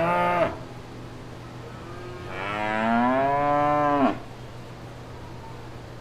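Cow mooing twice: the end of one moo stops about half a second in, then a second long moo of about two seconds rises in pitch at its start and cuts off sharply. A steady low hum runs underneath.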